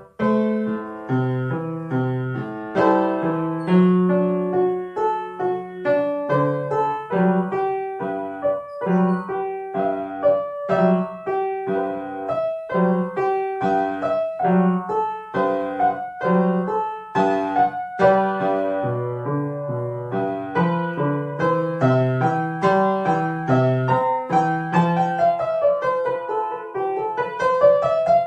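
Upright piano played solo: a steady stream of separate notes over a recurring low bass note.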